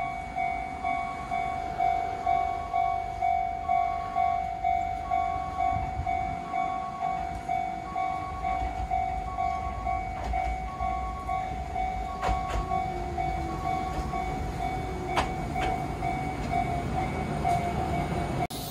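Japanese level-crossing warning bells ringing in a steady repeating pattern, about one and a half rings a second, with a second, higher-pitched alarm ringing alongside until about three quarters of the way through. An approaching Enoden electric train adds a low rumble from about halfway in, with a few sharp clicks of wheels over rail joints near the end.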